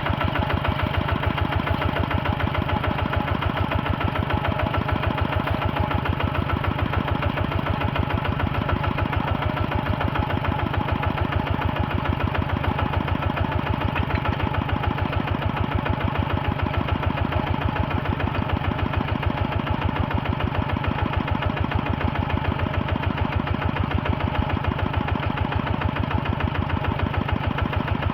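A heavy machine's engine running steadily at an even speed, a fast regular pulse that never changes pace.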